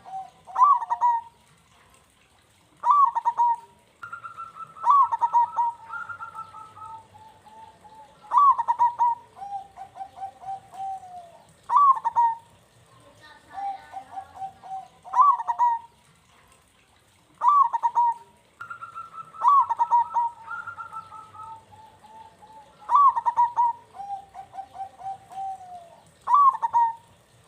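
Zebra dove (perkutut) singing its cooing song over and over: each phrase opens with sharp, clipped high notes and runs into a string of rapid, trilled coos. The phrase comes back every three to four seconds.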